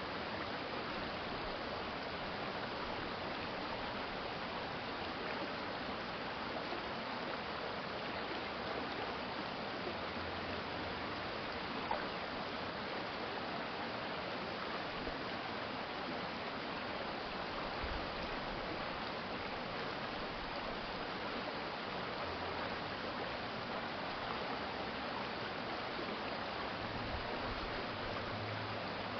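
Stream water running steadily, an even rushing with no breaks, with a single faint click about twelve seconds in.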